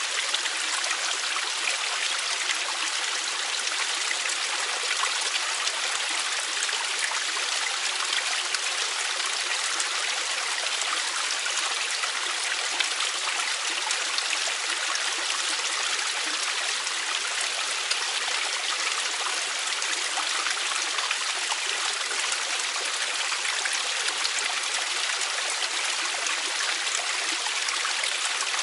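A mountain stream rushing and splashing over rocks, a steady hiss of running water with no breaks.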